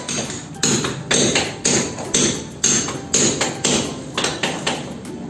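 Hammer tapping a ceramic wall tile to bed it into fresh mortar: a steady run of sharp knocks, about two a second.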